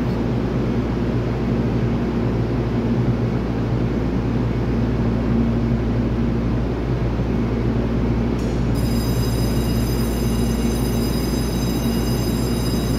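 EMU3000 electric multiple unit standing at the platform, its onboard equipment giving a steady low hum. A faint high whine joins in about nine seconds in.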